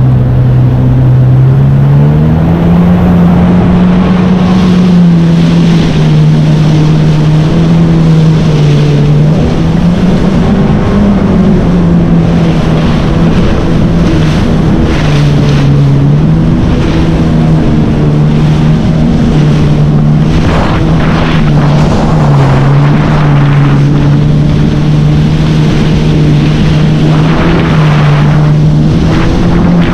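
Jet ski engine running at speed. Its pitch climbs about two seconds in, then dips and recovers several times. Wind buffets the microphone, with water noise underneath.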